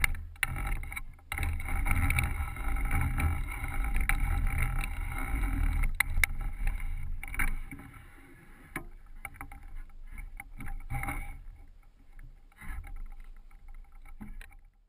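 Outdoor wind rumble on the microphone with scattered clicks and scuffs of handling. It drops off sharply about eight seconds in, leaving fainter clicks and rustles.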